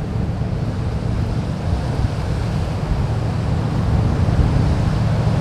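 Strong wind buffeting the microphone over the steady rush of surf.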